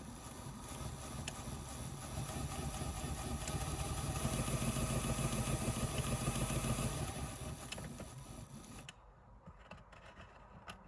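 The small electric motor and gearing of a TRIX N gauge Britannia model locomotive running on test after a repair with new traction tyres and fresh lubrication. The buzzing whir grows louder over the first few seconds, then drops away about nine seconds in.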